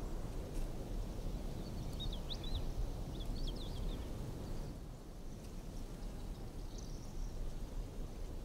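Open-country outdoor ambience: a steady low rumble with short, quick bird chirps in a cluster about two to three and a half seconds in, and a few fainter high chirps near the end.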